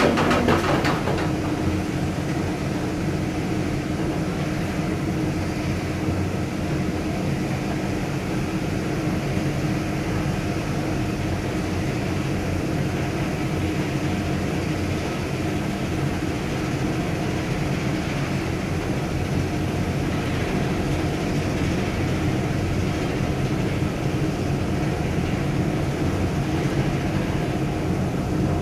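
Car of a 1975 KONE inclined traction elevator travelling along its inclined track: a steady rumble of rolling and running machinery with a steady low hum.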